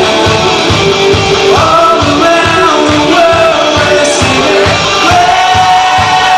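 Rock band music with a steady drum beat and long held melody notes sliding from one pitch to the next.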